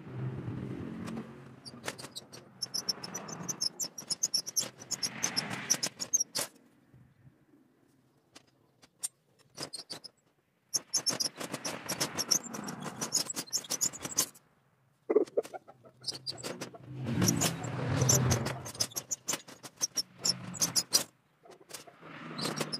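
Hand-cranked three-roll bending machine rolling a steel flat bar: metal squeaking and clicking as the handwheel turns the solid rollers, in runs that stop twice briefly.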